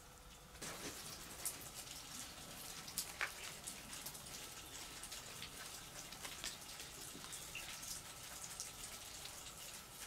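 Shallow stream water trickling and dripping, a faint steady hiss scattered with small sharp drips, starting suddenly about half a second in.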